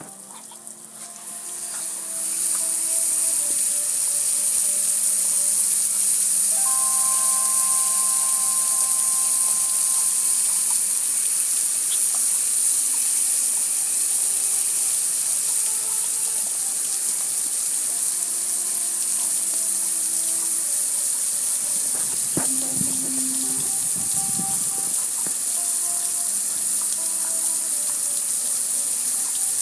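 Water pouring over a soapy gas grill, a steady splashing hiss that comes in about two seconds in as the stream lands on the grill's lid and panel and runs off onto the concrete.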